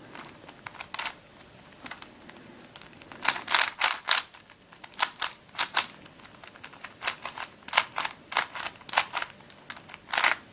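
Plastic pieces of a Witeden 2x2x3 Camouflage II shape-shifting twisty puzzle clicking and clacking as its layers are turned by hand, in irregular runs of sharp clicks, sparse at first and busier from about three seconds in. The puzzle is turning freely.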